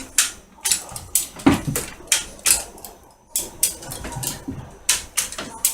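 Homemade workshop hoist being worked to lift a mini lathe: a run of sharp mechanical clicks and knocks, about two a second and slightly uneven.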